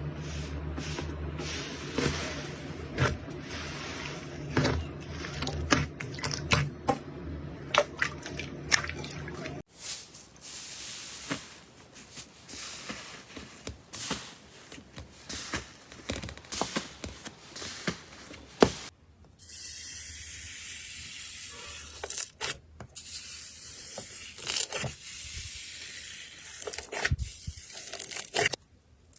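Slime being squished, pressed and stretched by hand, giving runs of sticky crackles, pops and clicks. The character of the sound changes abruptly twice as one clip gives way to another, with a steady high hiss under the last part.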